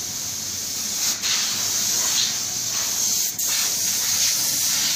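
Pneumatic paint spray gun hissing steadily as compressed air is let through it, with two brief breaks, about a second in and past three seconds in.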